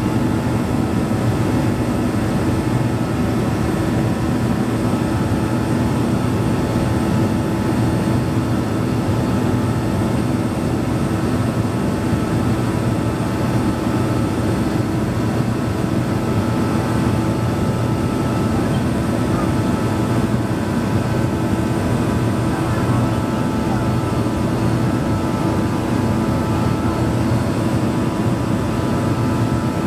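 Cabin noise of an Avro RJ85 climbing out after takeoff: its Honeywell LF507 turbofans running at climb power, heard inside the cabin beside the engine as a steady drone with several constant tones.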